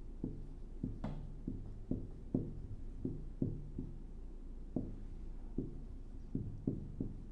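Marker writing on a whiteboard: a string of dull taps and short strokes, about two a second, as letters are written, with one sharper click about a second in.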